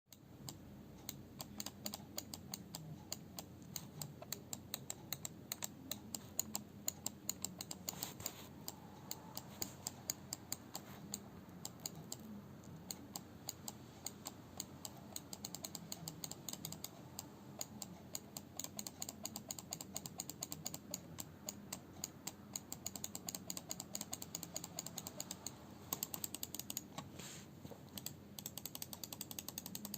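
HyperX Raid gaming mouse's left button clicked rapidly and repeatedly, several sharp clicks a second. The owner says the button and wheel squeak under hard use, but the squeak is faint beside the clicks.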